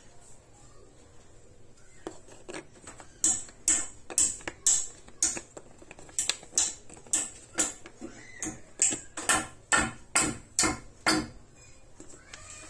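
A run of sharp plastic clicks, about two a second, as the salt-reservoir cap of a tabletop dishwasher is handled and turned back into place. The clicks begin about two seconds in and stop shortly before the end.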